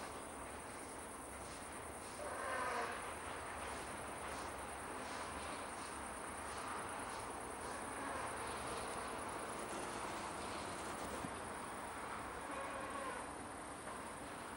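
Crickets trilling steadily in a high, evenly pulsing band, over the faint rolling noise of a container freight train passing on the tracks. A brief pitched sound stepping down in pitch stands out about two seconds in.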